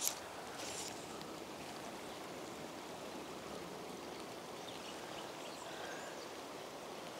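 Shallow river flowing: a faint, steady rush of running water.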